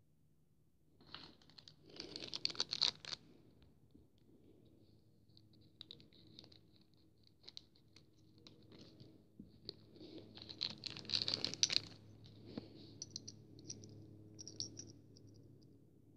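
Small clear plastic bag crinkling and rustling as it is handled and opened to take out a model airliner's two plastic engines, with scattered small clicks. The crinkling is loudest in two spells, one starting about a second in and another around ten seconds in.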